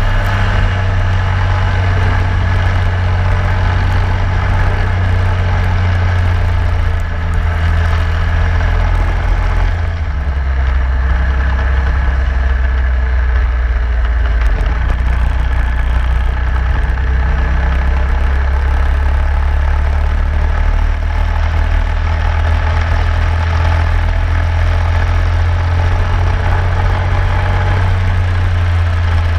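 Racing kart engine running at speed, heard from the kart itself with wind and tyre noise over it. The engine note drops about ten seconds in as the kart slows for a corner, and climbs again near the end.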